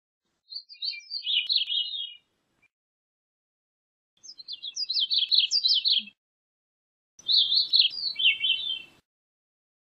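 Gray-cheeked thrush singing: three short song phrases with pauses between, each a quick run of high, fluty notes that twist and drop in pitch toward the end.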